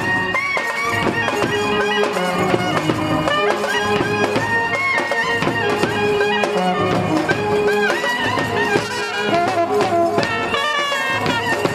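Indian-style wedding band playing a folk tune: a wind-instrument lead with a bending melody over a dense, steady accompaniment.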